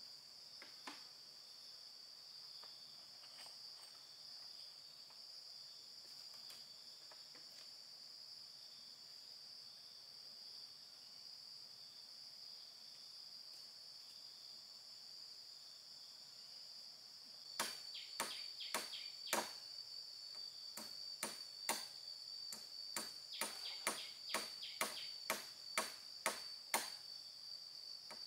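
Steady high-pitched insect chirring, with a run of sharp, irregular knocks starting about two-thirds of the way in, two or three a second and louder than the chirring.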